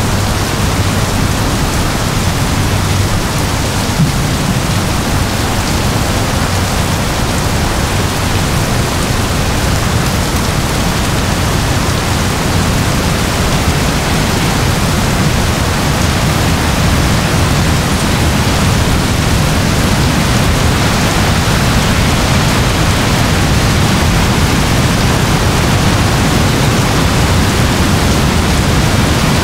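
Heavy rain falling, a loud, steady, dense hiss without a break.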